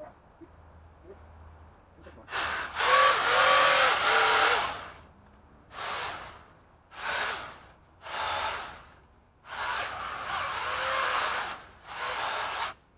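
Pole saw motor running in about six short bursts, each whining up to speed, holding briefly and winding down; the first and fifth bursts last about two seconds, the others under a second.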